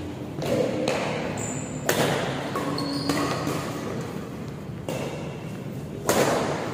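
Badminton rackets hitting a shuttlecock in a doubles rally: about five sharp hits a second or so apart, the loudest an overhead smash near the end, each with a short echo.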